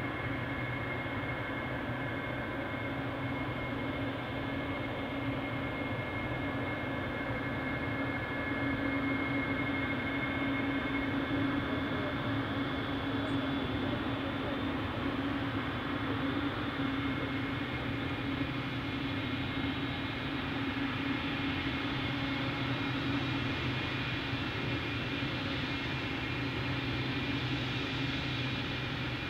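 Boeing 777-300ER's two GE90-115B turbofan engines running at low power as the jet taxis to line up: a steady jet whine over a low rumble. The whine grows a little brighter near the end.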